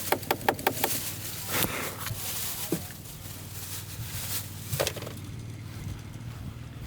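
A pocket knife scraping corrosion off a car battery terminal: a quick run of rasping strokes, about six a second, for the first second, then a few single scrapes, over a steady low hum.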